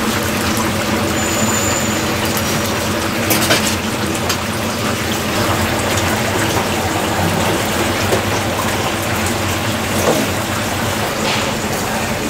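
Chicken deep-frying in a vat of hot oil: a steady sizzling hiss with a few scattered pops, over a low steady hum.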